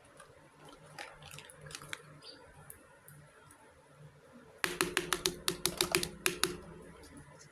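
Small hard miniature kitchen-set pieces being handled, giving a few light clicks, then, a little past halfway, a quick run of about a dozen sharp clicks and clatters with a faint ring.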